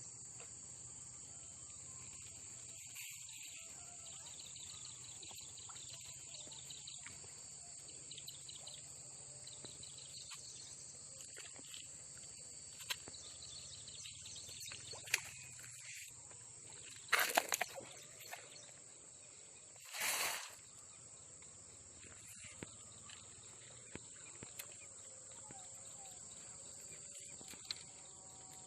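Insects chirring in a steady high-pitched drone. Two short louder bursts of noise come about two-thirds of the way through, with a few faint clicks elsewhere.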